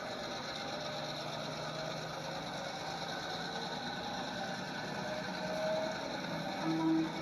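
Locomotive engine sound effect running steadily, with two brief tones near the end, the second lower and louder.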